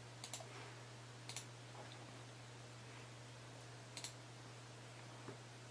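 Computer mouse clicks: three quick pairs of clicks spaced a second or more apart and a faint single click near the end, over a steady low hum.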